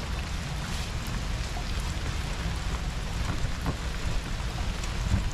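Steady rain falling, with a low rumble underneath and a few faint ticks, the sharpest about five seconds in.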